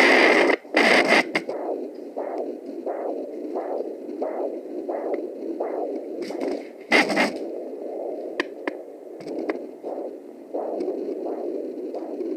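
Handheld fetal doppler heard through its speaker: a whooshing pulse about 85 times a minute over a steady hiss, which the user wonders is the placental sound. Loud scraping bursts from the probe moving on the skin come near the start and again about six to seven seconds in.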